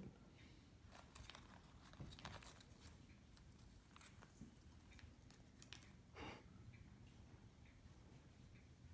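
Quiet, scattered crinkles and clicks of a cat chewing and tugging at tape, with a few slightly louder crackles now and then.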